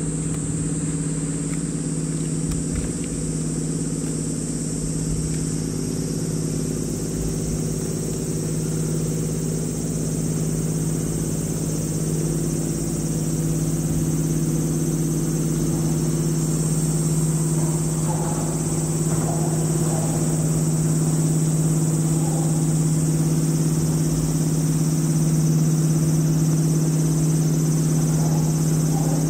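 Tugboat's diesel engine droning steadily as the boat passes, its low hum growing gradually louder in the second half as it comes closer. A steady high hiss sits above it.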